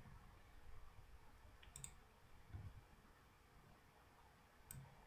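Near silence with two faint computer mouse clicks, one about two seconds in and one near the end.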